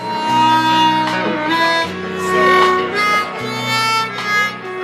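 Live country band playing an instrumental passage: a harmonica holds long notes over acoustic guitar and bass.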